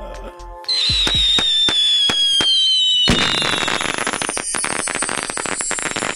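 A long whistle falling slowly in pitch, then a bang about three seconds in followed by dense crackling: the sound of a whistling firework bursting, laid over the end card.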